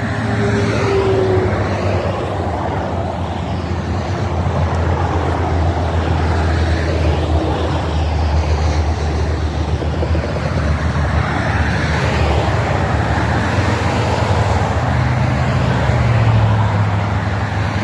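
Steady road traffic noise: cars and trucks passing on a highway, a continuous low rumble with tyre hiss and no single event standing out.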